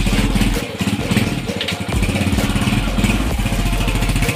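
Honda TMX 125 Alpha's single-cylinder four-stroke engine running, a steady run of rapid firing pulses.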